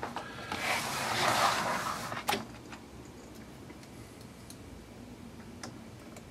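Handling of small kit parts and tools on a workbench: a rustle for about two seconds, a sharp click just after, then a few faint small ticks.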